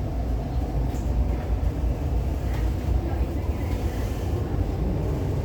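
MTR Tuen Ma Line C-Train running between stations, heard from inside the car: a steady low rumble of wheels on rails and running gear.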